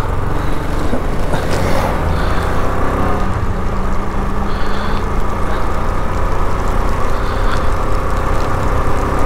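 Motorcycle engine running at a steady cruise while riding, with heavy wind rumble on the microphone.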